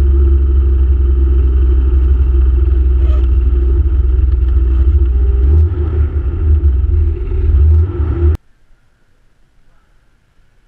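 Gyroplane's pusher engine and propeller running as it taxis: a steady low rumble with a hum. The sound wavers near the end, then cuts off suddenly about eight seconds in, leaving only faint background.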